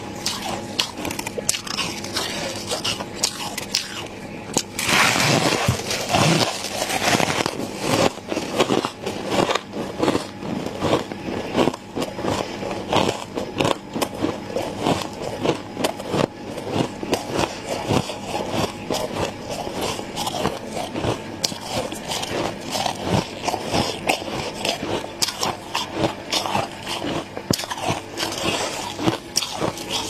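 Thick freezer frost being crunched and scraped: a dense, irregular run of crackling crunches, loudest from about five to eight seconds in.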